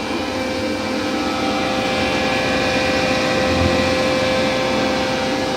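Hydro-vac (vacuum excavation) truck running outside, a steady loud machine drone with a constant whine, heard through an open window.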